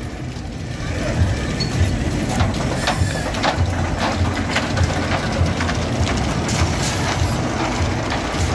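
Amusement-ride cars rumbling along a steel track, with a steady low rumble and many quick clattering clicks.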